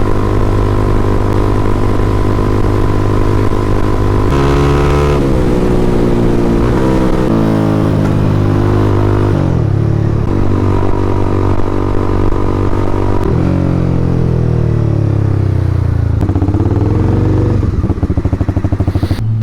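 Honda CBR300R single-cylinder engine under way: steady cruising, then the engine note rises and drops with several gear changes, falls away as the bike slows, and ends in a slow, lumpy idle near the end.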